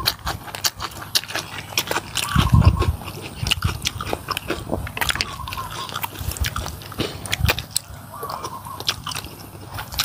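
Close-miked eating: chewing a mouthful of noodles, with many small wet mouth clicks and a brief low sound about two and a half seconds in.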